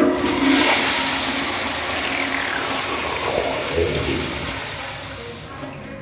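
Toilet flushing: a sudden loud rush of water that slowly fades over about five seconds, with a downward-gliding whistling tone in the middle.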